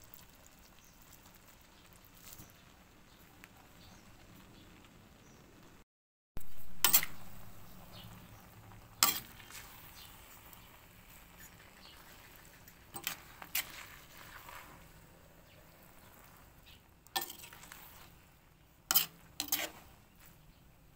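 A spatula scraping and knocking against a wok as stir-fried noodles and cabbage are tossed, a handful of sharp scrapes spread over the time, above a faint steady hiss of the frying.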